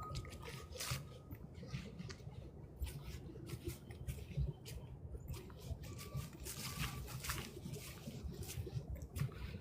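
Lake water lapping and splashing lightly at the shore, an irregular patter of small splashes over a low rumble.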